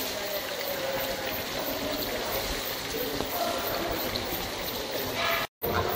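Steady running and trickling water from the cloister's pond fountain. It cuts out completely for a moment near the end.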